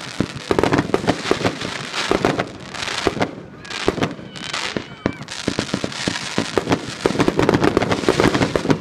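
Fireworks and firecrackers going off in rapid, dense strings of bangs and crackles. They thin out about halfway through, where a brief rising whistle is heard, then pick up densely again toward the end.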